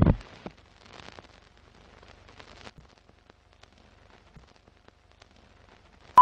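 Sound effects for an old-style film-leader countdown. A heavy thud at the start dies away within half a second, then faint crackling with scattered clicks runs on, and a short high beep sounds at the very end.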